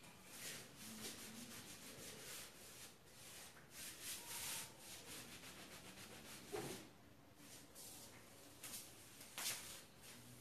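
Faint hand sanding of a painted wooden tabletop in repeated short, scratchy strokes, wearing back the fresh paint for a distressed, rustic finish.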